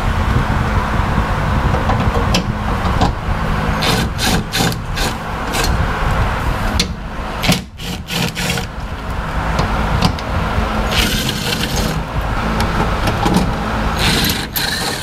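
Cordless impact driver hammering as it backs out the underbody shield bolts, running in long bursts with a brief break about halfway through.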